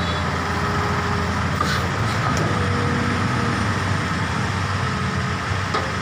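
Hitachi ZX200-3 hydraulic excavator's diesel engine running steadily under hydraulic load as the boom and bucket are worked, with faint hydraulic whine now and then.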